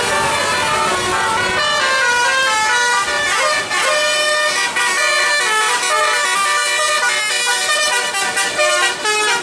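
Tour bus's basuri 'telolet' air horn playing a quick tune of short stepped notes, several horn tones sounding at once.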